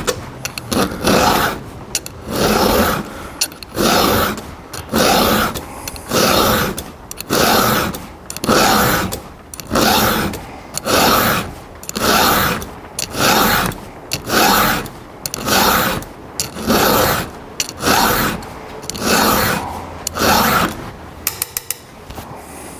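Hand file rasping across a steel chainsaw cutter tooth in steady push strokes, about one a second, filing back a battered, damaged tooth. The strokes stop near the end, followed by a few light clicks.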